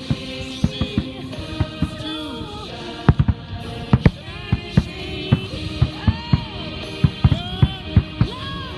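A fireworks display heard over a song with a singing voice playing on loudspeakers. Firework shells burst with sharp, booming thuds at irregular intervals, clustering more densely in the second half.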